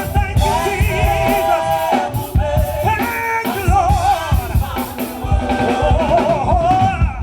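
A song playing: a singing voice with vibrato over a steady drum beat.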